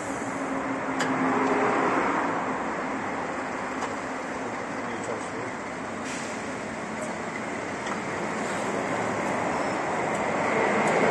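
Truck brake drum and disc lathe running, a steady even mechanical noise that grows louder near the end.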